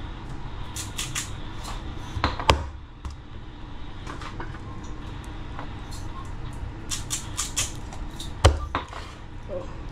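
Meat cleaver chopping fish on a wooden cutting board: two heavy chops, about two and a half seconds in and near the end, with lighter knocks and clatter between.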